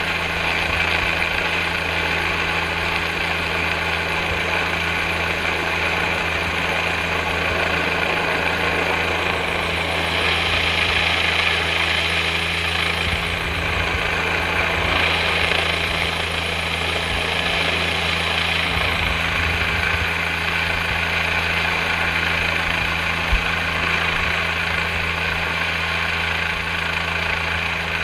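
Helicopter hovering overhead, rotors and engine running steadily, with a low hum and a high whine.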